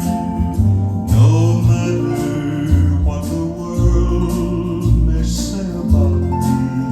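A song with singing over guitar and deep, pulsing bass notes.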